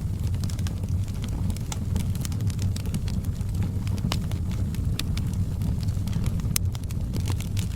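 Wood fire burning with a steady low rumble and irregular sharp crackles and pops from the burning logs, one louder pop about six and a half seconds in.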